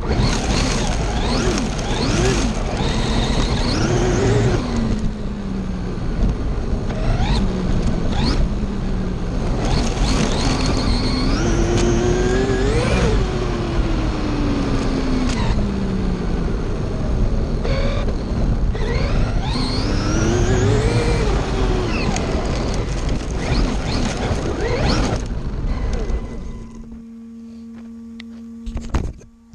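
Traxxas RC car on a 3S 50C LiPo with 18/54 gearing, its electric motor and drivetrain whining, the pitch rising and falling again and again as it accelerates, slows and passes. Near the end the car sound drops away, leaving a steady low hum.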